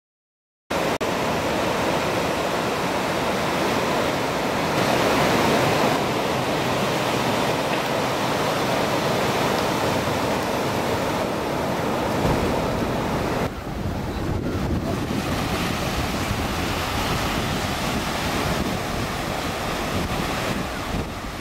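Ocean surf: waves breaking and washing in, a steady rushing noise, with wind on the microphone. It starts abruptly a little under a second in, and about two-thirds through it turns slightly quieter and less hissy.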